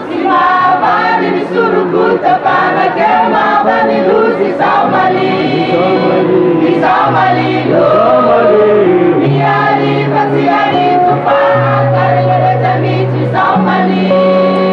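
Mixed choir of women and men singing unaccompanied in parts. Long held low notes from the men's voices sit under the women's higher melody.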